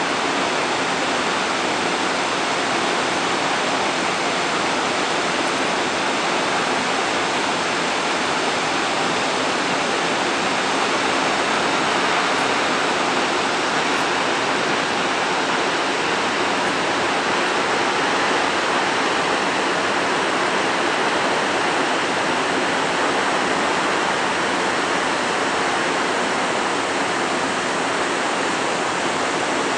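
The Lower Falls of the Yellowstone River: a steady, even rush of falling water.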